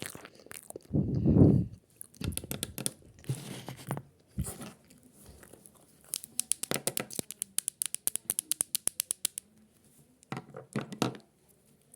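Close-up crunching and crinkling handling noises made up of sharp clicks. There is a loud low burst about a second in, and a fast run of about ten clicks a second in the middle.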